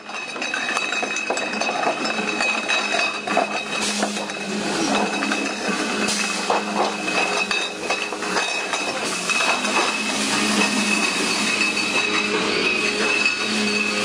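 Glass beer bottles clinking and knocking against each other on a bottling line, over a steady machine hum.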